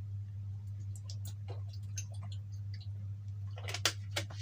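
Faint scattered clicks and ticks of a plastic relay and a lighter being handled, with a few sharper clicks near the end, over a steady low electrical hum.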